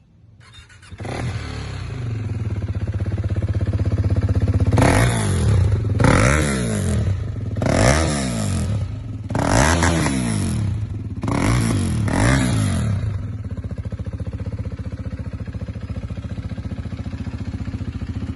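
KTM 390 Duke single-cylinder engine through a twin-outlet Two Brothers-style aftermarket muffler, starting up about a second in and idling. It is then blipped through about five quick revs, each rising and falling in pitch, before it settles back to a steady idle.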